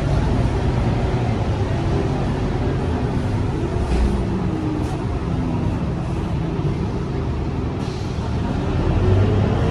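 Cabin sound of a Scania K230UB bus on the move: the five-cylinder diesel and drivetrain rumble, with a whine that falls slowly as the bus eases off, then rises again near the end as it picks up speed. A few light rattles come through.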